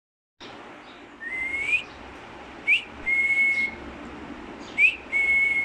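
Black-capped lorikeet whistling: a rising whistle, then twice a quick upward chirp followed by a long, level note.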